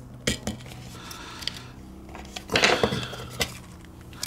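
Plastic clicks and a scraping slide as a Glock magazine's base plate is levered off with a mag claw tool, forced over its retaining tabs. The scrape is loudest about two and a half seconds in, with small knocks and clicks before and after.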